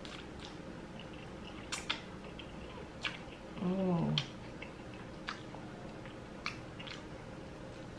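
A person eating spicy noodles: wet mouth clicks and smacks scattered through the chewing, with a short humming "mm" that falls in pitch about halfway through.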